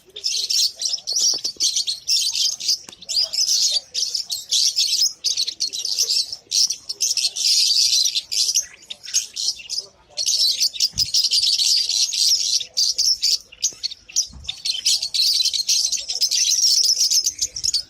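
Many small caged birds chirping together in a dense, high-pitched, continuous chatter, with a brief lull about ten seconds in.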